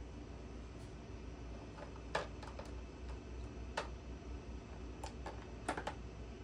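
A handful of short, sharp clicks or taps at irregular intervals, the loudest about two seconds in and several close together near the end, over a steady low hum.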